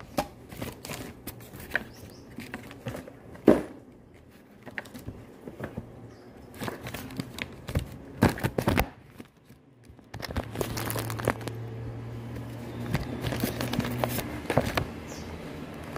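Close handling noise of a phone camera being set up on a glass table: rustling, scattered clicks and taps, and one sharp knock a few seconds in. About ten seconds in, a steady low hum starts and carries on.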